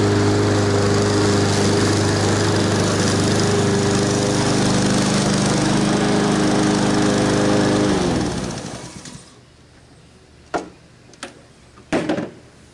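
Honda HRX217 walk-behind mower engine running steadily under load while cutting tall, thick grass with the chute partly open to bag and mulch at once. About eight seconds in, its pitch drops and it winds down to a stop. A few sharp clicks and knocks follow as the grass bag is unlatched and lifted off.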